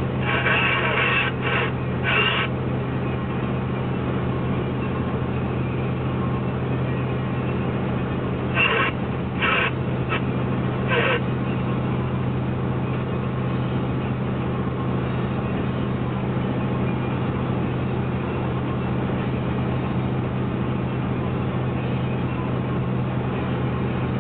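Steady engine drone with tyre and wind noise inside the cab of a truck at highway speed. A few short, sharper sounds come near the start and again around nine to eleven seconds in.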